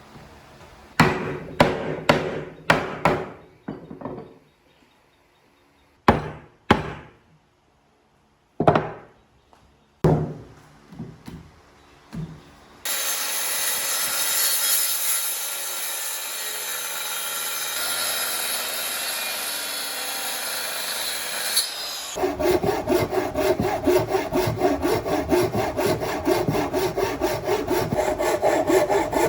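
Woodworking on hardwood: a run of sharp knocks on wood in the first half, then about nine seconds of steady rasping noise, then fast rhythmic strokes of a hand saw cutting wood near the end.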